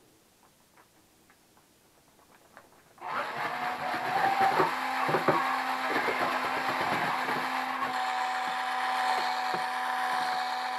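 Cordless drill with a paddle mixer starts about three seconds in and runs steadily, stirring freshly mixed plaster in a plastic bucket, with a steady motor hum and scattered knocks.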